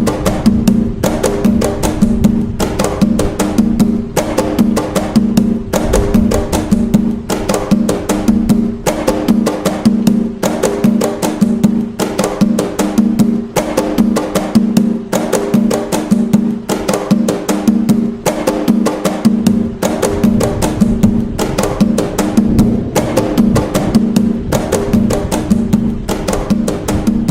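Atabaque hand drums playing the toque nagô rhythm of Umbanda: a dense, steady pattern of fast hand strokes on the drumheads, with a pitched drum tone recurring evenly and without a pause.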